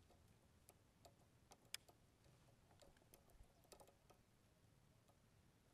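Near silence with faint, irregular small clicks and ticks from a fishing rod and reel being worked, one sharper click a little under two seconds in.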